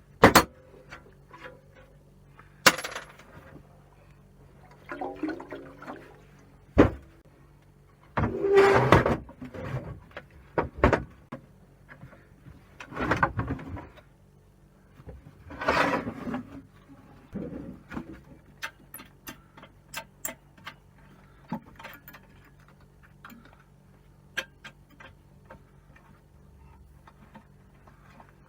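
Hand tools working on the metal parts of a combi boiler while a brass nut is undone: scattered metallic clicks and knocks, with three louder second-long noisy rushes about halfway through and quick light ticking in the later part.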